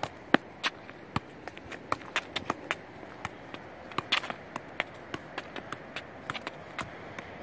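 Soccer ball being juggled: a string of sharp, irregular taps, about three a second, as it is struck with the foot and knee.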